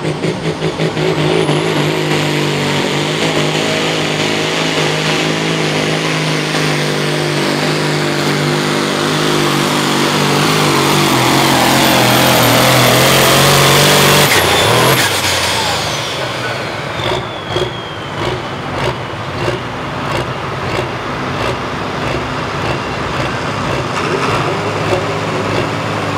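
Turbocharged diesel engine of a John Deere hot farm pulling tractor run at full throttle under load, with a high turbo whistle over the engine, growing louder for about fourteen seconds. Then the throttle is cut: the turbo whistle winds down and the engine drops back to a lumpy idle.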